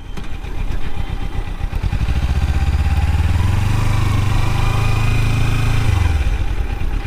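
Kawasaki Ninja 300 parallel-twin engine heard from the rider's seat while riding. The engine note builds from about two seconds in, holds steady, then drops away about six seconds in as the bike slows.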